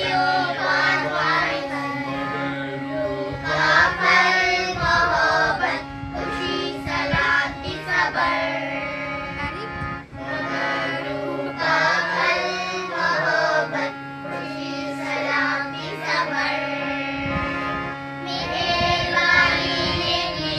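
A group of children singing together over steady held chords that change every few seconds.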